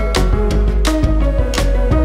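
Background music: sustained instrumental notes over a deep bass, with regular drum hits.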